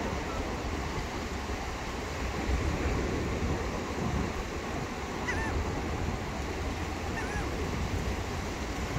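Surf washing on the beach with wind rumbling on the microphone. A few faint short bird chirps come through, about five and seven seconds in.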